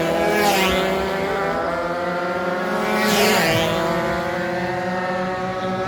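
Racing motorcycle engines running at high revs. Machines pass close by about half a second in and again about three seconds in.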